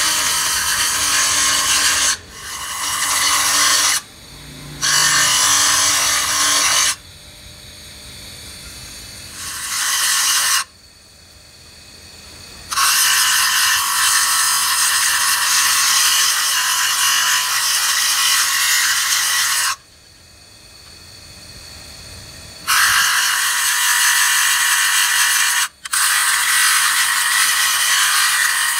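Bench grinder's abrasive disc grinding the spiral teeth of a steel pinion gear held against it by hand: a loud, harsh grinding in several passes of a few seconds each, with short breaks where the gear is lifted off and the disc spins free.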